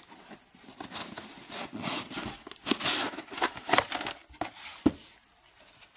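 Cardboard shipping box being torn open along its perforated tear strip and the lid pulled up, with irregular tearing and crinkling of cardboard and paper for about four seconds and a single sharp knock near the end.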